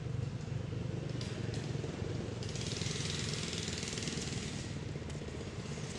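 A steady low engine drone with a fast, even pulse, and a high hiss joining in for about two seconds midway.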